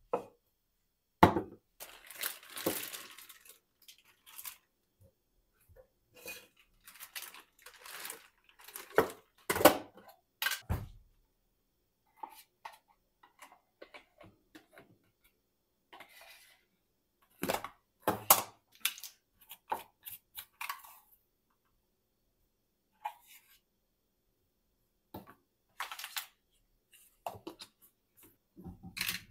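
Scattered kitchen handling sounds: a tall plastic blender cup and plastic food containers being set down and knocked on a countertop and lids being opened, with some rustling between sharp knocks that come at irregular times.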